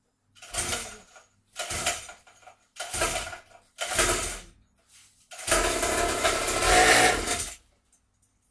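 Pit bike engine being kick-started: four short bursts as it fires and dies, about a second apart, then it runs for about two seconds before cutting out.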